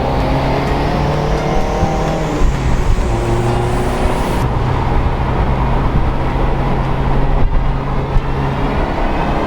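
Honda S2000's four-cylinder engine running under way, its pitch climbing over the first few seconds and then holding steady.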